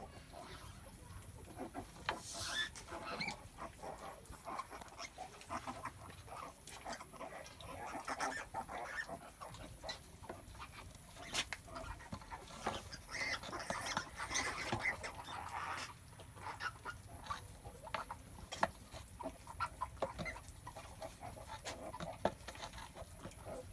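Pigs at farrowing, a sow and her newborn piglets, giving short scattered calls, busiest about a third and about halfway through. Sharp clicks and knocks come in between.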